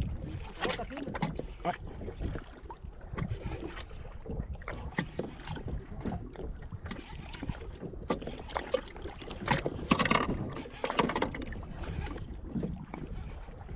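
Wind buffeting the microphone on a fishing kayak at sea, with water lapping and frequent short knocks and clicks against the hull and gear. About ten seconds in there is a louder hissing stretch.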